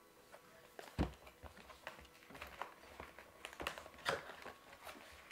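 A product box handled in the hands: scattered light taps, knocks and rubbing of the packaging, with a louder knock about a second in.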